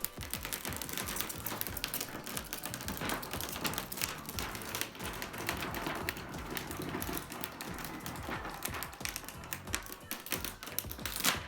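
Rapid, irregular clicks and taps of the TV and its packaging being handled, over background music.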